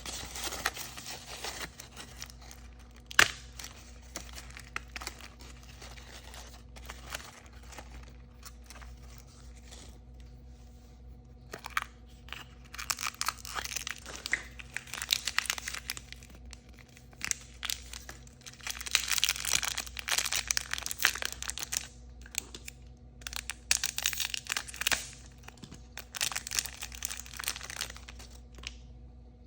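Surprise-toy packaging torn open and crinkled by hand: several stretches of rustling and tearing, heaviest in the second half, with one sharp snap a few seconds in.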